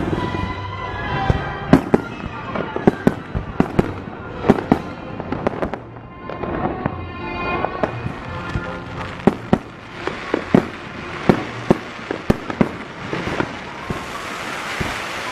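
Fireworks display: an irregular string of sharp bangs, often two or three a second, as shells and rockets burst, with music playing underneath, clearest in the first few seconds. Near the end a hissing swell rises under the bangs.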